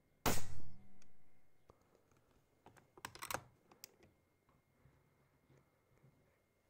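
A single shot from an Altaros .22 PCP airgun about a quarter second in: one sharp crack that fades over about a second. About three seconds in comes a quick cluster of mechanical clicks as the rifle's action is worked, then a few faint ticks.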